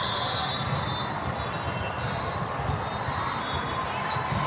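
Busy sports-hall din: crowd chatter and volleyballs thudding on courts all around, echoing in the large hall, with a brief high tone near the start.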